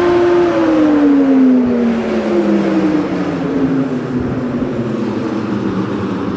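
Loud grain bin aeration fan switched off and spinning down: its steady whine starts falling in pitch about half a second in and keeps sinking as the fan slows.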